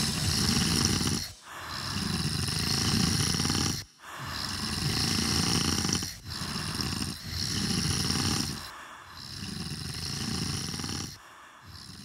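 Cartoon snoring: a run of long, low snores, one every one to two seconds, growing fainter toward the end.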